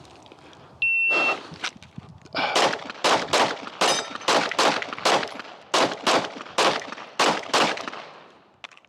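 An electronic shot timer beeps once, then a Glock 45 9mm pistol fires a rapid string of about a dozen shots over roughly five seconds. The shots come in singles and quick pairs as the shooter transitions between a steel plate and paper targets.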